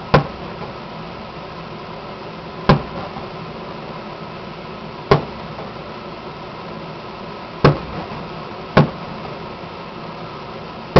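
Distant aerial firework shells bursting, five booms about two and a half seconds apart, each with a short rumbling tail. They sound over a steady background hum.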